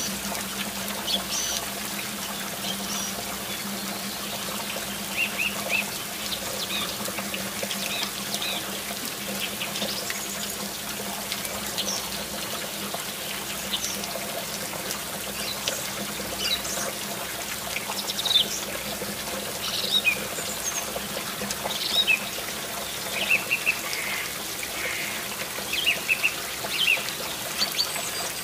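A thin stream of water trickling and pouring steadily from a miniature pump-fed fountain spout into a small pool, with birds chirping now and then.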